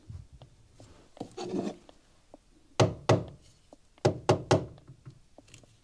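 Plastic-faced mallet tapping a Ruger scope ring on a stainless Mini-14 receiver: two sharp knocks, then three more about a second later. The blows jar the ring so that it seats fully and its clamp screw can be drawn tighter.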